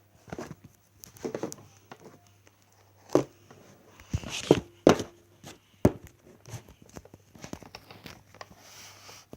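Handling noises close to the microphone: irregular clicks and knocks with light rustling, the loudest a few sharp knocks in the middle, as the camera setup is moved and adjusted.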